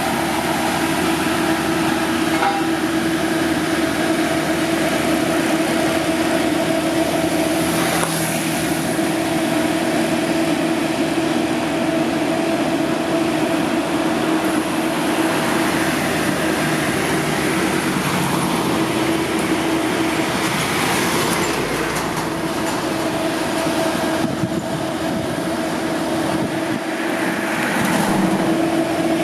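Heavy road-construction machinery running steadily: a loud, constant machine drone with a steady hum underneath.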